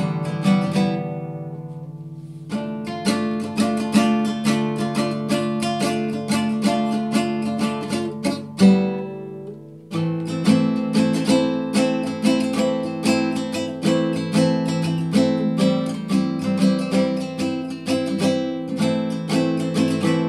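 Classical nylon-string guitar strummed in a steady rhythm. About a second in, and again near the middle, a chord is left to ring and fade before the playing picks up again.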